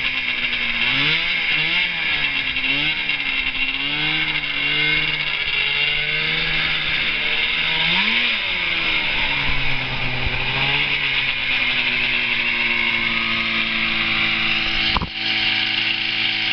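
1986 Yamaha SRV's 540 cc two-stroke twin, fitted in a golf cart, revving up and down over and over as the cart drives, then settling to a steady idle from about eleven seconds in. A single sharp click about fifteen seconds in.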